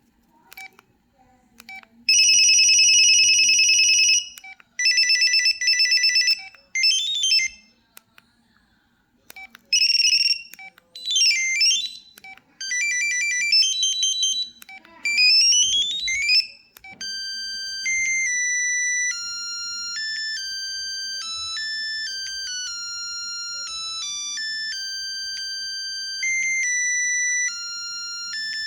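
An LG Cyon mobile phone plays its built-in ringtones through its loudspeaker one after another. First come several short, high electronic beeping and trilling tones, some sliding up or down in pitch, with brief clicks before and between them. From about halfway, a continuous ringtone melody of stepping electronic notes takes over.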